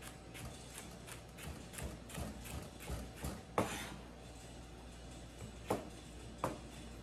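Chef's knife dicing carrot on a plastic cutting board: a quick, uneven run of short knocks, about three a second, as the blade goes through the carrot and strikes the board, with a few sharper knocks among them.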